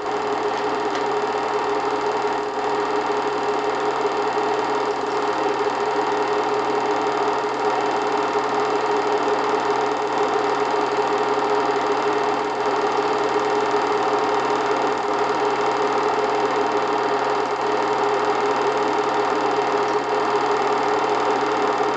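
8mm film projector running, a steady mechanical whir and clatter with a constant hum.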